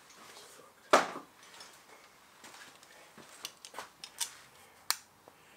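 Small metal clicks and clinks of Cleco temporary fasteners and Cleco pliers being handled: one sharp click about a second in, then several lighter clicks toward the end.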